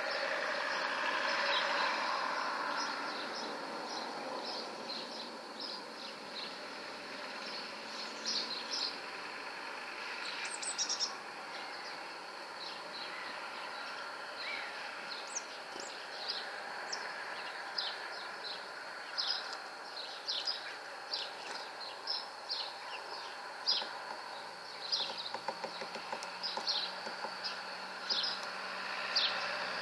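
Small birds calling with many short, high chirps, more frequent in the second half, over steady background noise.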